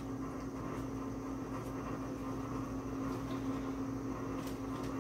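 Steady low mechanical hum of a running appliance, with a few faint light clicks.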